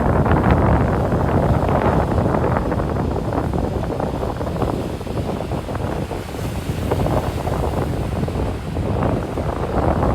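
Ocean surf washing onto a sandy beach, with wind buffeting the microphone: a loud, rough rush of noise that swells and eases.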